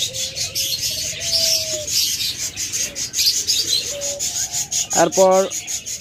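Many caged birds chirping and chattering in a dense, steady chorus, with a few short whistled notes.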